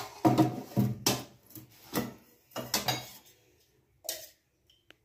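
Metal clinks and knocks of a stainless steel oil can being handled: lid coming off and a steel spoon dipping in and striking the inside of the can. The strikes are clustered in the first three seconds, followed by a couple of fainter taps.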